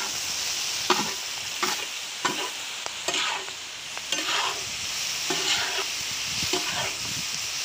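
Chicken pieces frying in oil on a large tawa with a steady sizzle. A flat metal spatula scrapes and stirs across the pan about once a second.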